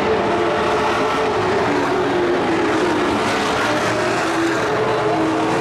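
Several dirt-track race trucks' engines running hard around the oval at once, their pitches overlapping and drifting up and down.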